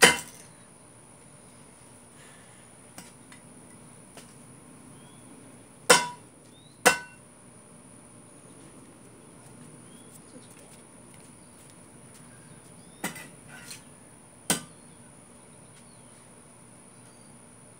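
Metal shovel blade striking a plastic fidget spinner on concrete: about five sharp metallic clanks with a short ring, coming at uneven intervals and partly in pairs, with a few lighter taps between.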